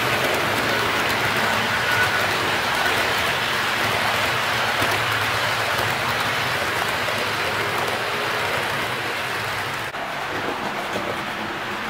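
HO-scale model train cars rolling past on metal track: a steady rushing rumble of wheels on rail, quieter from about ten seconds in.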